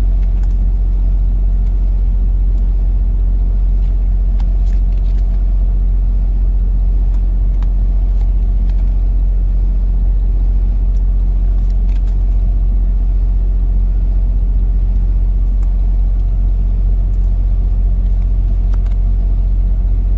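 Steady low rumble with a constant hum, unchanging throughout, with a few faint clicks here and there.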